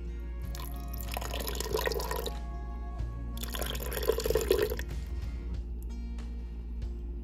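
Cornstarch slurry pouring in a thin stream into a pot of milky plantain atole, splashing in two spells of about a second each, over steady background music.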